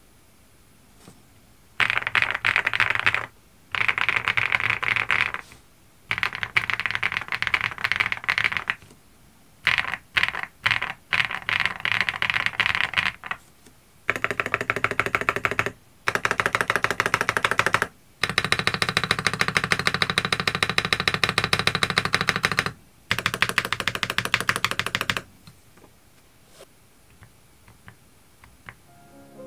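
SPM Joyakdol 75 mechanical keyboard being typed on fast. Several runs of rapid keystrokes with short pauses between them start about two seconds in and stop a few seconds before the end.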